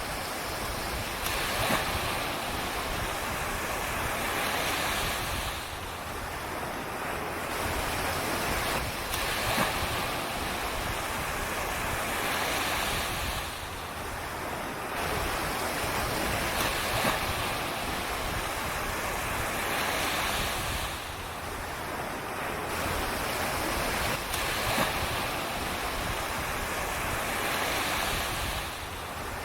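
Small surf breaking and washing up the beach, swelling and easing about every seven to eight seconds, with wind rumbling on the microphone.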